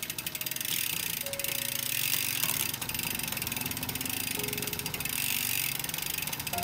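Bicycle rear freehub ratcheting as the wheel and cassette spin freely: a fast, continuous run of fine clicks from the pawls.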